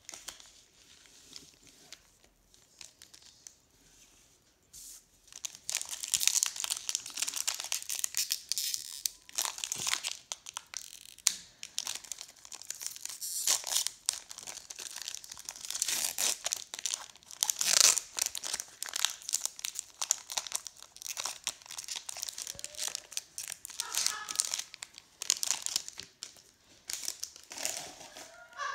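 Foil wrapper of a Pokémon trading card booster pack crinkling and tearing as it is pulled open by hand. The crackling starts about five seconds in and goes on in a dense, irregular run.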